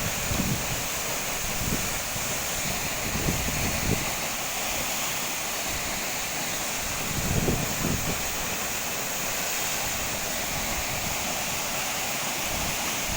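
Steady rush of a tall waterfall, with wind buffeting the microphone in a few short low thumps, the strongest about seven and a half seconds in.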